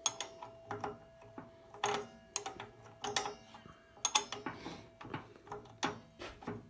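Small steel spanners clicking and clinking against a table saw's arbor nut and spindle as they are fitted: a string of irregular light metal knocks over a faint steady hum.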